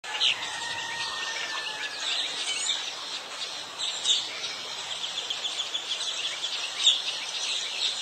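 A steady chorus of high chirps and trills, like birdsong or night insects, with a fast pulsing trill about midway and a few sharper, louder chirps.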